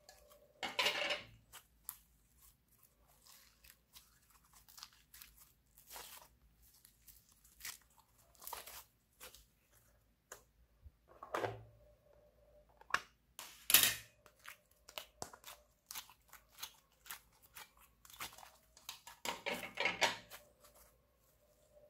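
Hands squeezing and pulling apart soft slime and clay, making an irregular run of small sticky clicks and crackles, with a few louder squishy bursts spread through.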